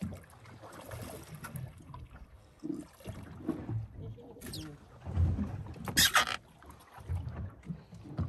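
Water lapping and knocking against the hull of a fishing boat, with uneven low thuds. A short, sharp hissing burst about six seconds in is the loudest sound.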